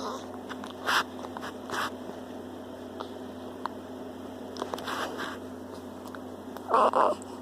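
Baby hiccuping: a few short, sudden hiccups spaced irregularly, the loudest near the end.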